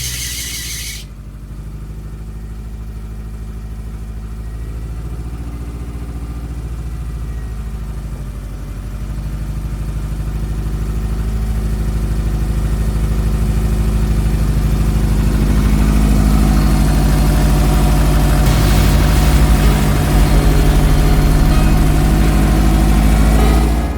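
Subaru WRX STI turbocharged flat-four engine running at idle, getting steadily louder over the first half.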